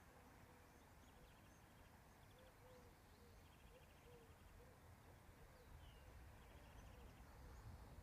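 Faint distant birds calling: a soft series of low notes about two a second, a few short rattling trills and thin high chirps, over a low rumble.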